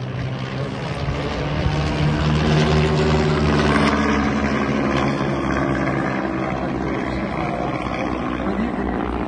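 Propeller engines of two small aircraft flying in close formation overhead, a steady drone that swells to its loudest two to four seconds in and then eases a little as they pass.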